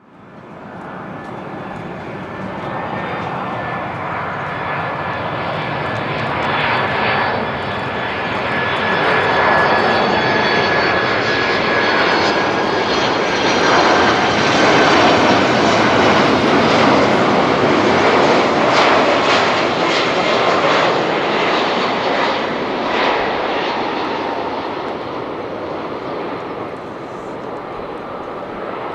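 Boeing 767-300ER freighter's twin jet engines on final approach: a rushing jet noise with a high whine that slowly falls in pitch. It swells to its loudest as the aircraft passes close by, about halfway through, then eases as it descends toward the runway.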